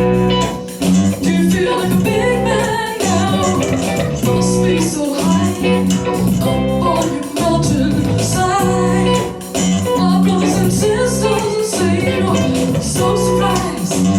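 Music: a song with guitar and bass, with singing, playing to a steady beat.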